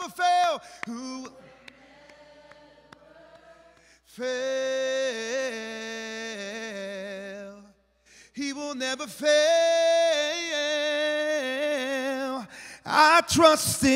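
A man singing a slow worship song unaccompanied, in long held and wavering notes, in separate phrases with pauses between them; the singing grows louder near the end.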